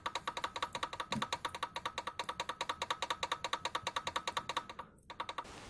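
Steel S&S breather gear from a Harley-Davidson Evolution engine rattling in a rapid, even run of light clicks, about ten a second, that stops near the end after a few last clicks. It is the knock the gear made in mesh, which the owner puts down to the clearance between the gears.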